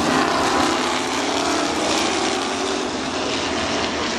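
Engines of several vintage Can-Am sports racing cars running past on the circuit, a loud, steady blend of racing-engine notes with a slight dip about three seconds in.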